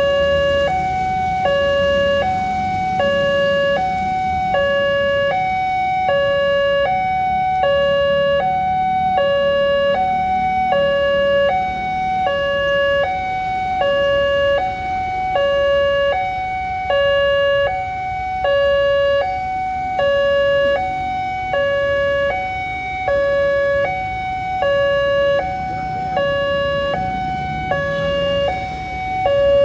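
Railway level-crossing warning alarm sounding continuously: an electronic two-tone signal switching evenly back and forth between a lower and a higher pitch, each held a little under a second. It warns that a train is approaching and the crossing is closed. Under it is a low rumble.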